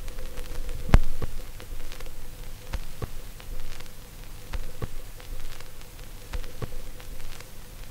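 Steady hiss and static with a low hum and a faint steady tone. Irregular sharp clicks and pops break through it, the loudest about a second in.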